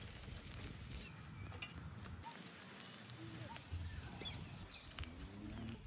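Quiet rural outdoor ambience with a low background rumble and a few faint bird chirps.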